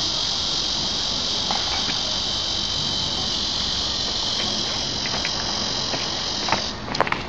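Steady high-pitched buzzing of a cicada chorus that cuts off suddenly near the end, followed by a few sharp taps.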